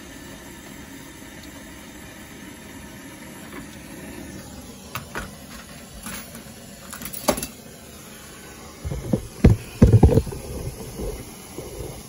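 Brazing torch flame hissing steadily. Sharp clicks come about five to seven seconds in, then several loud low rumbles and knocks around nine to eleven seconds.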